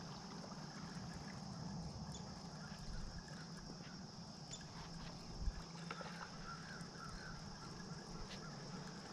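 Quiet outdoor ambience with a steady faint high drone and a low hum. A few faint chirps come in the middle, and a single dull thump about five and a half seconds in.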